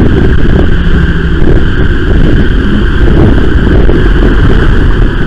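Loud, steady wind rush on the microphone of a bicycle-mounted camera while riding, mixed with the rumble of heavy traffic close alongside.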